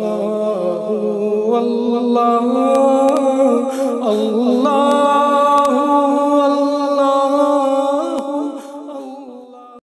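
Slow vocal chant: voices holding long, wavering notes over a steady low drone, without percussion. It fades near the end and cuts off abruptly.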